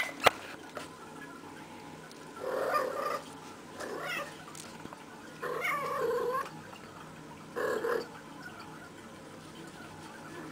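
Domestic cat vocalizing in four short, separate calls spread over several seconds, the third the longest. Two sharp clicks come right at the start.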